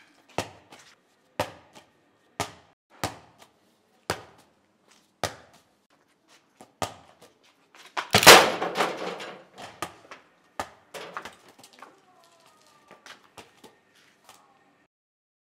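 A football thudding over and over as it is kicked and bounces on a paved courtyard, about once a second. About eight seconds in comes one much louder crash with a rattling tail.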